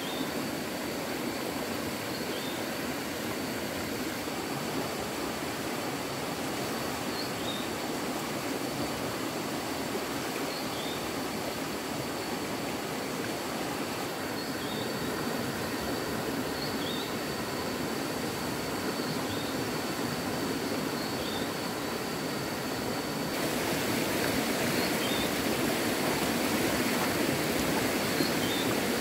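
Stream water running steadily, with a faint thin high tone and short high chirps every second or two over it. The water gets abruptly louder late on.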